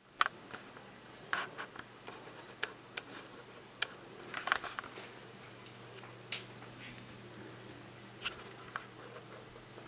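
Scattered light clicks, taps and scratches at irregular moments, a dozen or so, from a long-haired cat moving about on a windowsill and brushing against a curtain; the loudest come about a quarter second in and around four and a half seconds in.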